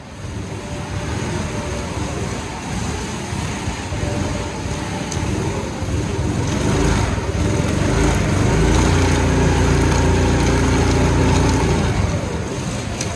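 Drift kart running and sliding around a slick track, heard from the driver's seat. It gets louder about halfway through, with a steady hum for several seconds before easing near the end.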